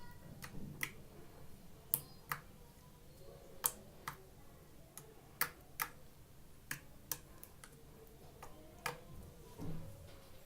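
Slime being worked by hand, giving a dozen or so sharp, irregularly spaced clicks and pops.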